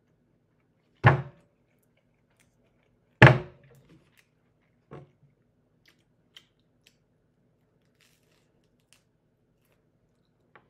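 Two loud knocks about two seconds apart, then a softer one, followed by faint scattered clicks from a person eating a sandwich.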